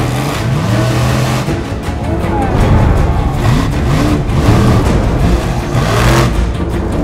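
Monster truck engine revving hard in repeated rising surges as the truck drives over crushed cars, over a music track.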